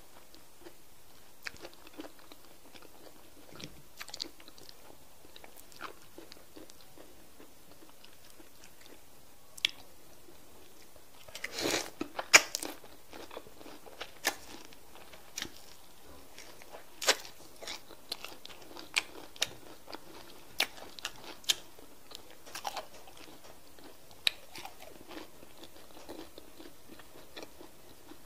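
Close-miked chewing and mouth sounds of a person eating semolina fufu with slimy okra soup by hand: scattered short clicks and smacks, with a louder cluster about twelve seconds in.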